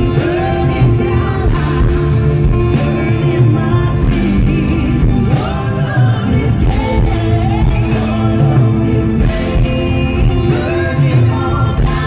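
Live acoustic pop-rock song: an acoustic guitar played under several voices singing together through the concert PA.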